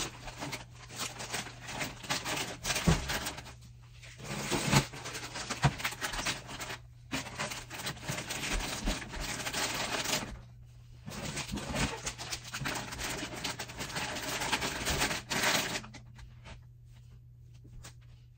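Crinkling and rustling of plastic popcorn snack bags being handled and set into a clear plastic bin on a wire shelf, with short pauses and occasional light knocks. It thins out near the end. A low steady hum sits underneath.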